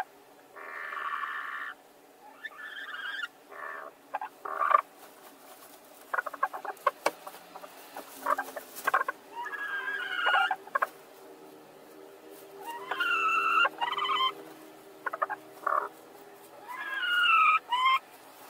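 Two laying hens squabbling over one straw nest box: a string of short, repeated hen calls, the last one near the end falling in pitch, with a patch of quick clicks and rustling in the straw about six to nine seconds in as they push and shift.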